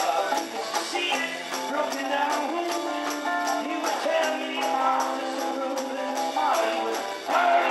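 Rock band playing live: electric guitar, bass, keyboard and drums, with a male voice singing over them. A bright percussion beat ticks steadily about four times a second.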